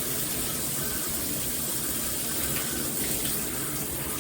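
Water spraying steadily from a Hibbent all-metal shower head combo at full flow, a great flow.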